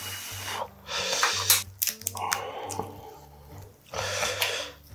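Breathy blowing on and slurping of hot spicy seafood ramen noodles, with a cluster of sharp clicks about halfway through. Soft background music underneath.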